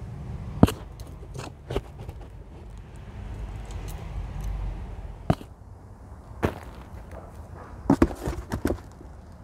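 Hand gardening work: a hand scoop knocking and scraping in a plastic tub of soil amendment, giving scattered sharp clicks and knocks, several close together near the end, over a steady low rumble.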